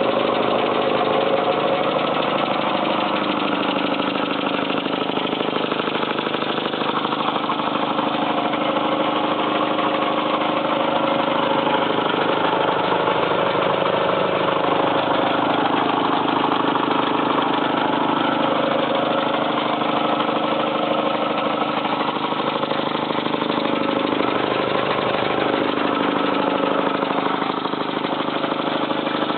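A 1977 Sears air compressor running steadily, its rebuilt pump and electric motor making a constant mechanical drone.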